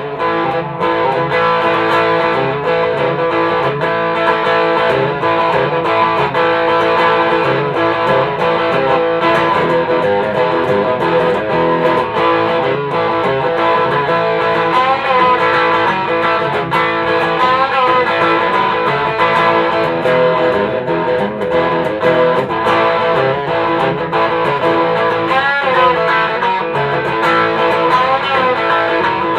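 Electric guitar played through a Mosky Golden Horse Klon-clone overdrive pedal into a Fender Blues Deluxe tube amp: continuous chords and lead lines, with a few string bends.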